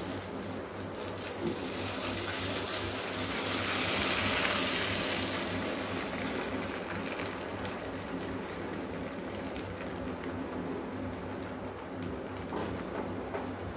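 Appam batter sizzling on a hot iron appam pan, a fine hiss with small crackles that swells for a few seconds while the pan is swirled and the batter spreads up the sides. A low steady hum runs underneath.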